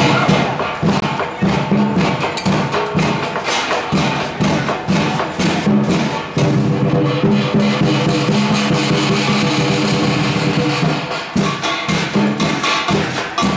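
Chinese parade percussion band playing a fast, busy beat: rapid wood-block and cymbal strikes over drums, accompanying the costumed dancers.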